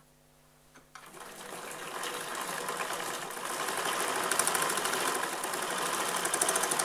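Bicycle-pedal-driven wood lathe spinning up, with a hand-held turning tool cutting into the bark of a boxwood blank. A rhythmic mechanical clatter with a scraping cut starts about a second in and grows steadily louder.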